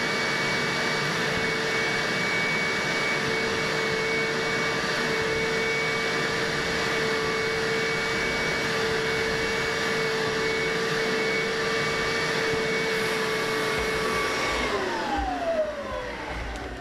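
Hoover upholstery shampooer's motor running steadily with a constant whine as its hose tool draws over a couch cushion; near the end it is shut off and the whine falls in pitch as the motor winds down.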